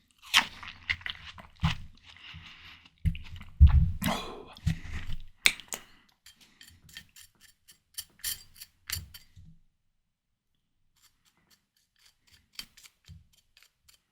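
Close-miked chewing of ripe, juicy watermelon: crisp, wet crunches over the first few seconds, then a run of quick clicking mouth sounds. It goes almost quiet for a couple of seconds, then a few faint clicks follow near the end.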